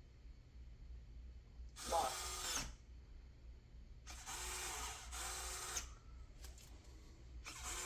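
Smart deadbolt lock's motor whirring in short bursts: once about two seconds in, then twice back to back between about four and six seconds in, as the lock drives its bolt while its sensor reads the door as improperly closed.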